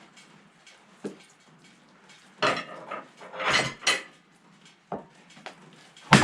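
Irregular clattering knocks and scrapes of freshly sawn boards being handled on a sawmill, in two short clusters, then a single sharp loud knock near the end.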